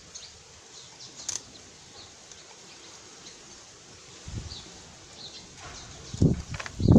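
Hands turning a coconut-shell pot against a plastic PVC pipe to drive it onto a glued screw. Low knocks and scraping start about four seconds in and are loudest near the end, over a quiet background with a few faint high chirps.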